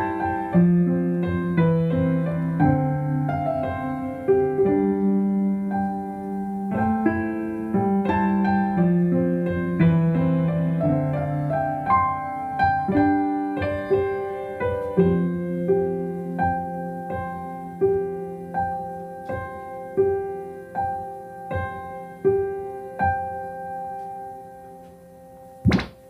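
Piano playing a melody over low chords. The notes come in quick runs at first, then settle to about one a second and fade, and a sharp click sounds near the end.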